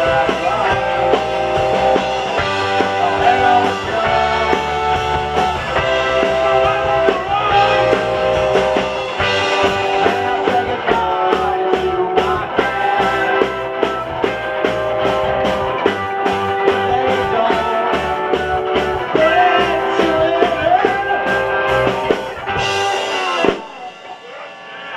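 Live rock band playing electric guitars, bass and drums, with steady drum strokes under sustained guitar chords. Near the end the song stops on a final crash and the sound drops away.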